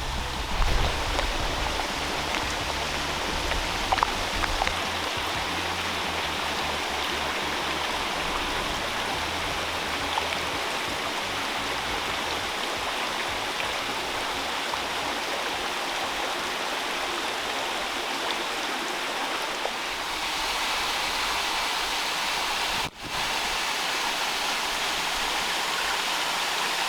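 Waterfall splashing steadily, an even rush of falling water, with a few low knocks and rumbles in the first seconds and a brief drop-out near the end.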